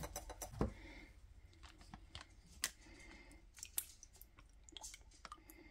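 Faint scattered clicks and light taps from kitchen utensils and containers being handled, a few sharp ticks spread unevenly over a low background hum.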